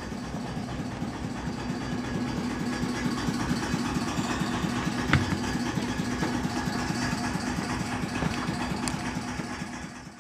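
Engine running steadily with an even, fast throb, and a single sharp click about halfway through.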